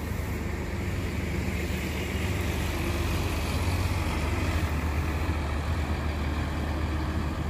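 A large coach bus drives slowly past at close range and pulls away, its diesel engine running with a low, steady note.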